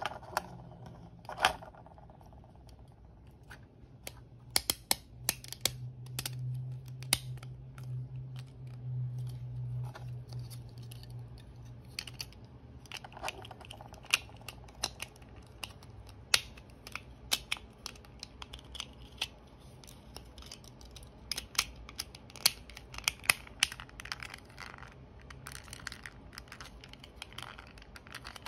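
Small sharp clicks and taps of hard plastic as a clear tape cassette is handled and fitted into snap-together plastic dispenser shells. A low steady hum runs underneath from about five to eleven seconds in.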